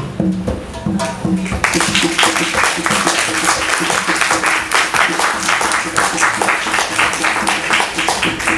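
Background music with steady held notes, joined about two seconds in by an audience applauding.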